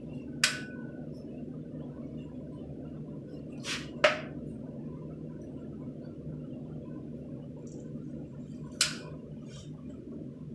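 Caulking gun trigger clicking as silicone sealant is squeezed out in a bead: four sharp clicks, one about half a second in, a close pair around four seconds in (the second the loudest), and one near the end, over a steady low hum.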